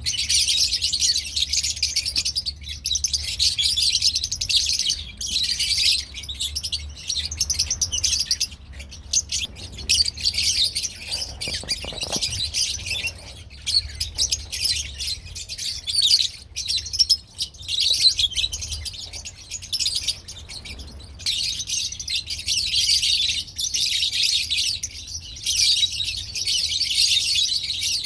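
Many lovebirds chattering together, a dense stream of high-pitched chirps that thins out for a while in the middle, over a faint low hum.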